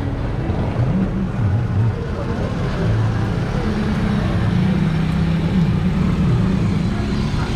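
Street traffic: motor vehicle engines running close by, their pitch rising and falling as they rev, over a steady traffic hum.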